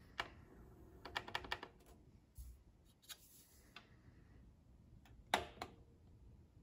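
Front-panel push buttons of a Sony STR-S5 stereo receiver clicking as they are pressed: a single click, a quick run of clicks about a second in, a few scattered ones, and a louder pair of clicks a little past five seconds.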